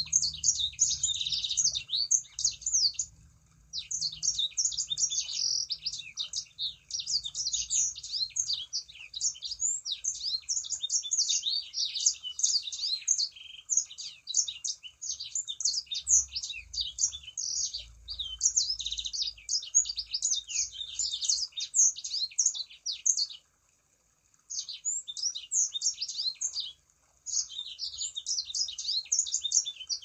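Sanger songbird singing a fast, continuous chattering song of rapid high notes in long unbroken phrases, with a few brief pauses and a longer break of about a second in the second half.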